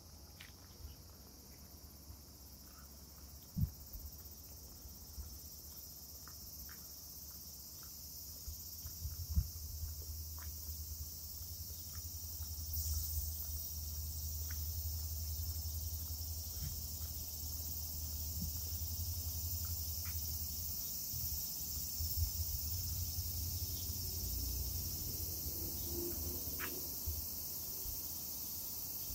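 A chorus of cicadas singing steadily, with a low rumble underneath that swells for a while in the middle and a few faint knocks.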